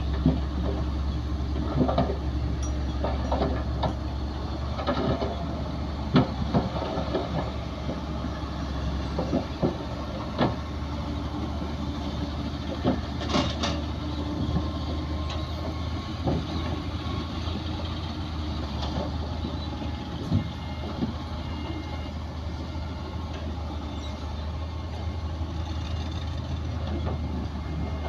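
Heavy diesel earthmoving machinery running steadily with a low engine hum, with frequent short clanks and knocks scattered throughout.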